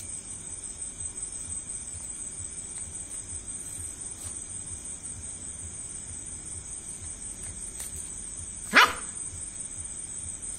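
A German shepherd puppy gives one short, sharp bark near the end, over the steady high chirring of crickets.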